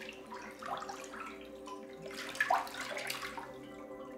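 Bathwater sloshing and splashing in a filled bathtub as bodies shift in it, in uneven swishes that are loudest a little past two seconds in.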